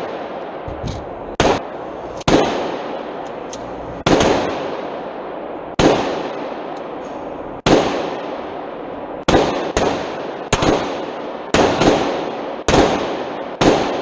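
Gunfire: about a dozen single shots at irregular intervals, each followed by a long echoing tail. The shots come closer together in the second half.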